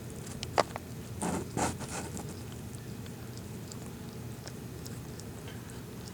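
A few short rustles and a sharp click, likely a mother cat and her newborn kitten moving in their bedding, over a steady low hum.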